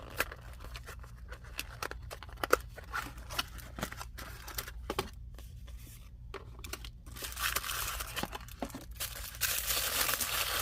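Plastic toy packaging crinkling, with many scattered small crackles and clicks. It is then torn open with two longer rips, one about seven seconds in and one near the end.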